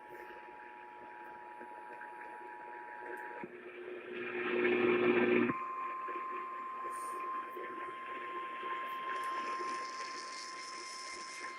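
Emergency alert tones heard over a weather radio through steady static hiss. The two-tone EAS attention signal stops about three and a half seconds in, and a loud two-second burst of noise follows. After it comes a single steady tone, the NOAA Weather Radio warning alarm tone that introduces a tornado warning.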